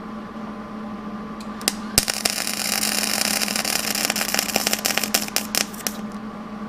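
MIG welder arc crackling and spitting for about four seconds, starting about two seconds in after a few short pops, as steel coat-hanger wire is welded in to fill a gap in a cab-corner seam. A steady low hum runs underneath throughout.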